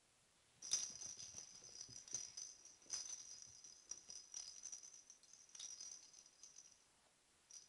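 Small bell inside a plastic cat toy ball, jingling and rattling in irregular shakes as kittens bat it across a carpet. It starts just under a second in, runs until about seven seconds, and jingles briefly again at the very end.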